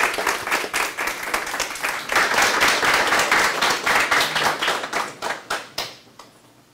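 Small audience applauding, many hands clapping, which dies away about six seconds in.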